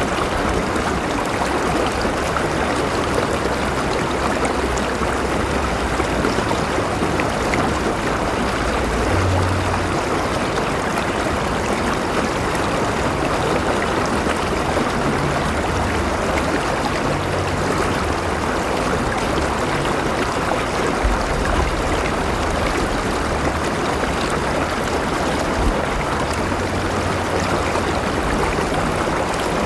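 River water flowing steadily over stones, an even rushing and babbling with a low rumble underneath.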